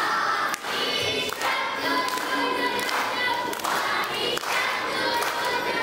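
A group of children singing together in unison, with a few thumps scattered through.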